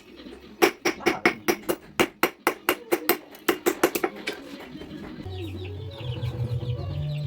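Hand hammer striking steel on an anvil in a fast, even series of about sixteen blows, roughly four a second, which stop a little past the middle. After that, low steady music begins with chirping birds over it.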